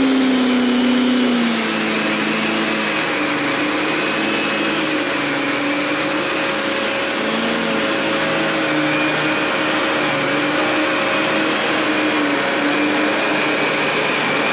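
Fantom Lightning canister vacuum running with its power nozzle being pushed over carpet through spilled cat litter. It is a steady, loud motor whine whose pitch dips about a second and a half in and then shifts a little now and then.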